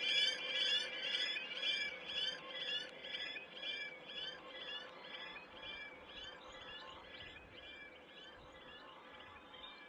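A bird repeats a short call about three times a second, growing steadily fainter until it has almost faded out near the end.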